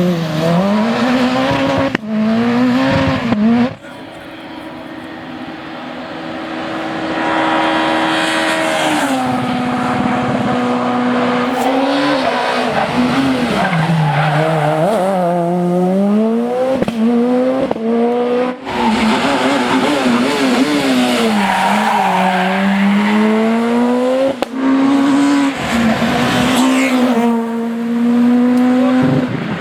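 Super 2000 rally cars' naturally aspirated four-cylinder engines at full throttle, pitch climbing and dropping again and again through rapid gear changes and lifts. A car comes in from a distance, getting louder over several seconds, and the sound cuts abruptly between cars several times.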